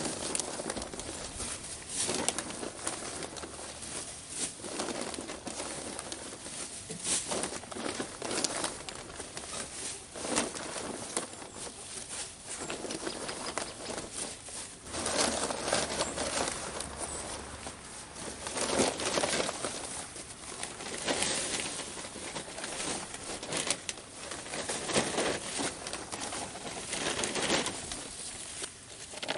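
Irregular bursts of rustling and crinkling as dry leaves, bedding and plastic bags are handled and spread into a chicken run.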